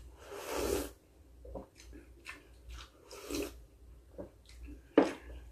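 Someone slurping hot beef soup broth from a small bowl: a long slurp about half a second in, then quiet mouth and swallowing noises and a shorter slurp about three seconds in.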